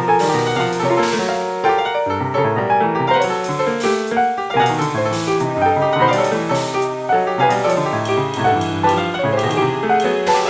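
Piano playing a free-jazz piece: a dense run of many overlapping notes and chords struck in quick succession.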